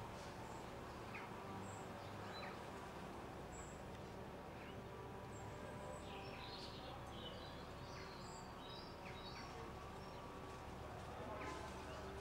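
Small birds chirping and singing faintly in short, scattered high notes, with a brief run of warbling about halfway through, over a steady low outdoor background hum.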